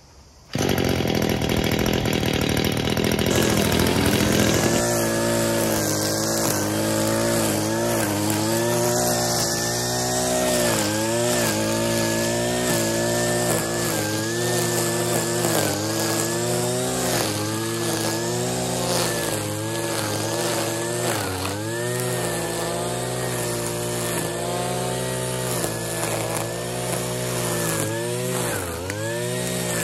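Petrol brush cutter with a nylon cord trimmer head starting about half a second in and running at high speed. It then cuts grass, its engine note dipping and rising over and over as the spinning cord meets the grass.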